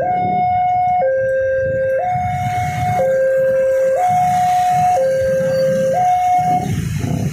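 Electronic two-tone siren alternating between a low and a higher pitch, about one second each, over a low rumble of idling motorcycles. The siren cuts off near the end, leaving the traffic rumble.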